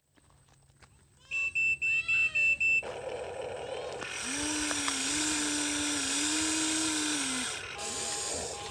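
Huina 1593 RC excavator starting up: a quick string of about six electronic start-up pulses with a steady high beep about a second in, then its electric motors running with a steady hum that rises and dips slightly over a hiss, dropping away near the end.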